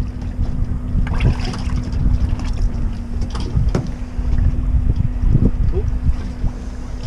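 Wind buffeting the microphone as a low rumble, under a steady low hum, with scattered light knocks and thumps as a halibut is handled and laid on the boat's carpeted deck.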